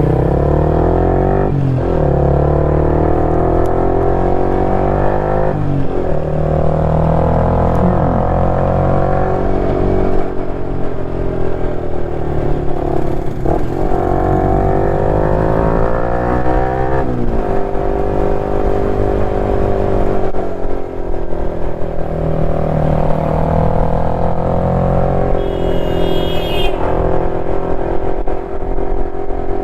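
KTM 390 Duke's single-cylinder engine on the move, its pitch rising and falling with the throttle and breaking off briefly at each gear change. A short high-pitched tone sounds near the end.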